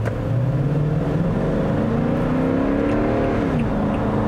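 Toyota Sequoia's 5.7-litre V8 accelerating, heard from inside the cabin: the engine note climbs steadily, drops sharply about three and a half seconds in as the six-speed automatic upshifts, then pulls on at a lower pitch.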